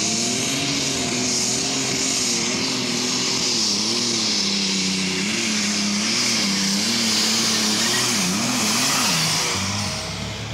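Super stock pulling tractor's turbocharged diesel engine running flat out under load during a pull, with a loud high hiss over it. The engine note wavers up and down from about four seconds in and eases slightly near the end.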